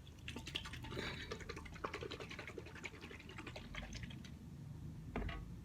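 Orange juice being poured into a glass, among many small clicks and ticks of handling the bottle and glass.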